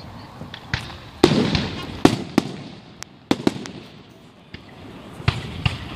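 Aerial fireworks going off: a string of sharp bangs at irregular intervals, the loudest a little over a second in, with more around two to three and a half seconds and again near the end.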